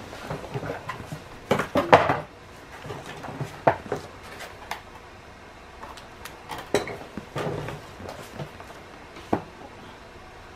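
Irregular clicks, clinks and rustles of a diamond painting kit being handled: plastic packaging and small bags of resin drills, the loudest cluster about two seconds in.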